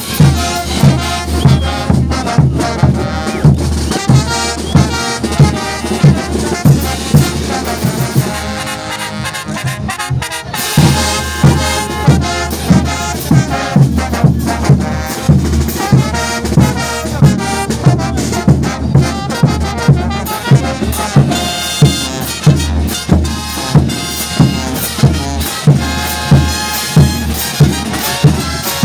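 Bolivian brass band playing, brass over drums with a bass drum beat about twice a second. The drums drop out for a couple of seconds about eight seconds in, then come back.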